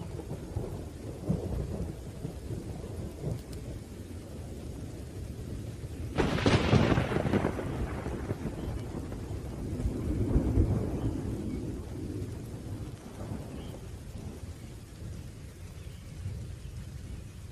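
Thunderstorm: rain falling under low rolling thunder. About six seconds in comes a sudden loud thunderclap that rumbles on for several seconds, with a smaller swell of thunder a few seconds later.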